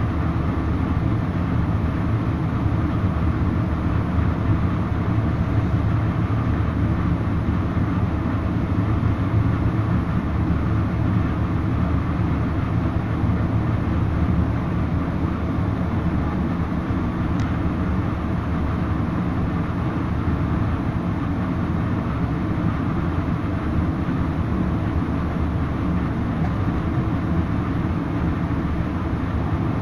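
Steady low rumble of a Metrolink commuter train rolling along the track, heard from inside a passenger car.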